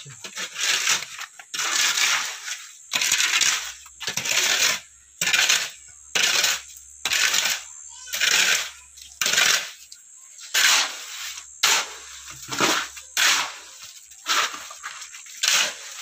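Steel shovels scraping and grinding through a gravel and cement mix on a concrete floor, one stroke about every second, as the concrete is mixed by hand.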